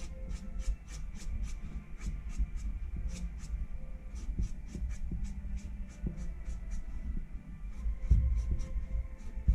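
A half-dry Micron brush pen scratching across paper in quick, short, feathery strokes, about three a second.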